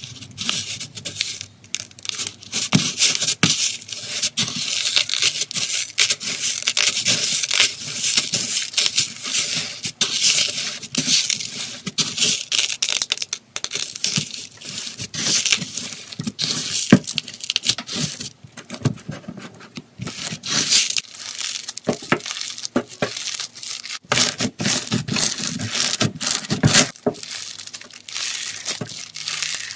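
Red glitter slime being pressed and kneaded into clear plastic beads: a dense, continuous crunching and crackling of the beads popping in the slime, with brief pauses between squeezes.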